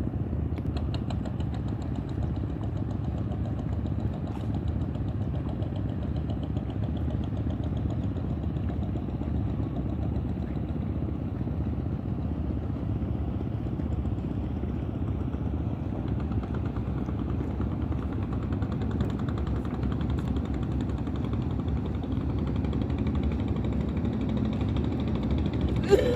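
Boat engine running steadily, a constant low hum with a fine even beat from the engine.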